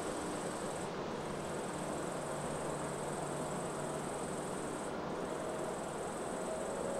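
Steady, distant jet-engine noise from an Airbus A300-600 taxiing, with a high, thin insect trill that stops briefly twice, about a second in and again about five seconds in.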